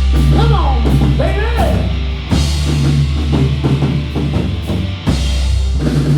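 Rock band playing at full volume: drum kit, bass and electric guitar. About the first two seconds carry a lead line that bends up and down in pitch over the steady beat.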